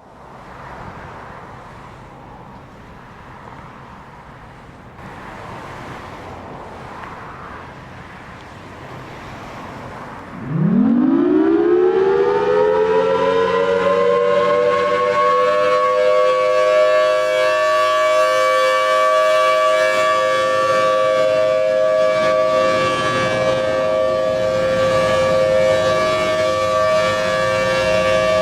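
Federal Signal Thunderbolt 1000T warning siren with a 5/6 port ratio starting up for an Alert test. After about ten seconds of background noise it winds up with a steep rising pitch, then holds a loud, steady two-tone chord.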